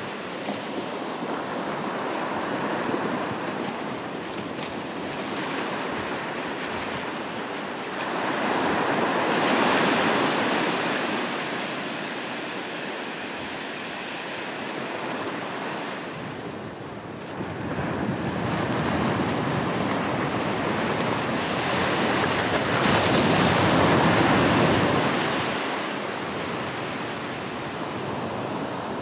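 Ocean surf: a continuous wash of breaking waves that swells and fades in long surges, loudest about ten seconds in and again from about eighteen to twenty-five seconds, with wind mixed in.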